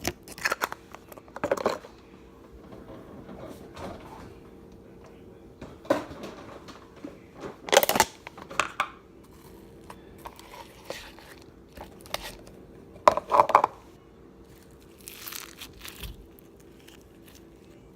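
Slime being squished and worked by hand, giving irregular crackling, popping bursts, with the loudest pops about a third of the way in and again about three quarters of the way in.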